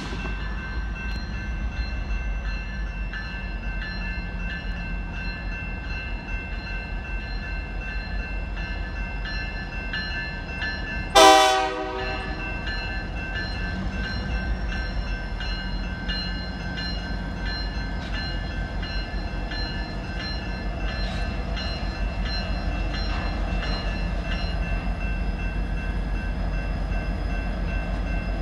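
BNSF diesel switching locomotives rumble steadily as they draw a cut of cars toward a grade crossing, while a crossing bell rings in a steady repeating pattern. About eleven seconds in, the locomotive horn gives one short blast, the loudest sound. The engine noise grows louder near the end as the locomotives come closer.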